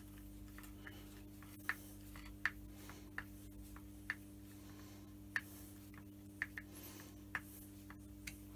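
Faint, sharp metallic clicks at uneven spacing, roughly one a second, from a lathe countershaft pulley and clutch assembly being worked by hand in a vise, over a steady low hum.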